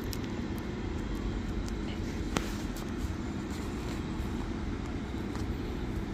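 Northern diesel multiple unit running as it approaches slowly along the platform: a steady low rumble with a faint constant hum. A sharp click about two and a half seconds in.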